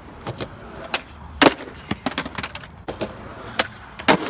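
Skateboard clacking and clattering: a rapid string of sharp knocks from the board's deck and wheels striking the ground, loudest about a second and a half in and again near the end.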